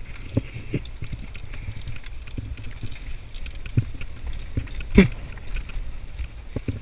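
Mountain bike riding over rough ground: a steady low rumble of wind on the microphone, with scattered knocks and rattles from the bike and one sharp, loud knock about five seconds in.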